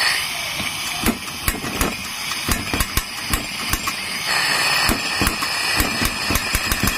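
Portable gas camping stove hissing as gas streams from the unlit burner, with repeated sharp igniter clicks that fail to light it. The hiss grows louder about four seconds in.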